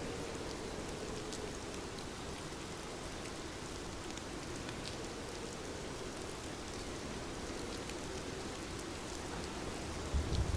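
Steady rain falling, an even hiss with scattered individual drops ticking. A low rumble swells up near the end.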